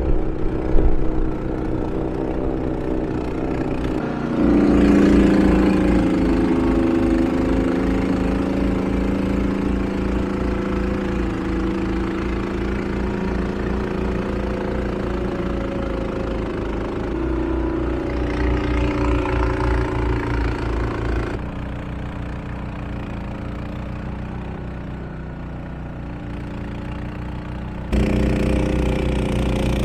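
Honda HSM1390i hybrid snowblower's single-cylinder iGX390 engine running steadily. Its level and tone jump suddenly several times, with a few loud knocks right at the start.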